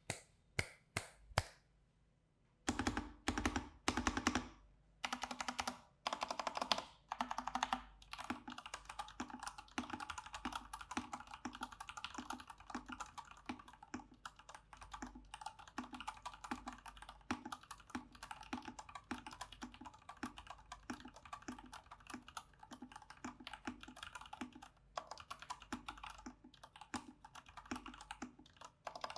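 Typing on IQUNIX mechanical keyboards: first an IQUNIX L80 with Cherry MX Brown switches, then, after a brief pause about halfway, an IQUNIX A80 with Cherry MX Red switches. It starts as separate key presses and short runs, then settles into steady fast typing.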